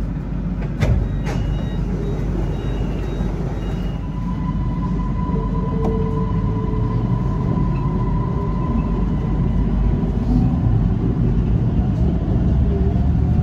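Siemens Inspiro metro train pulling out of a station and picking up speed: a steady running rumble with electric motor whine, rising in pitch near the end as it accelerates. A sharp knock comes about a second in, followed by a short run of high beeps.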